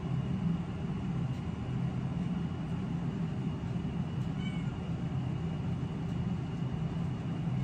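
A steady low hum, with a faint thin high tone over it and a faint short gliding chirp about halfway through.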